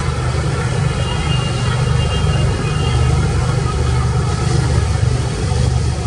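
Motor boat engine running steadily with a loud, low rumble as a wooden fishing boat motors past on the river.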